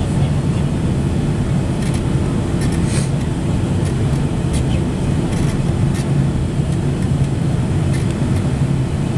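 Steady drone of a Boeing 767 cabin on its descent to land: the twin turbofan engines and rushing airflow heard from a window seat over the wing, deep and unbroken, with a few faint clicks.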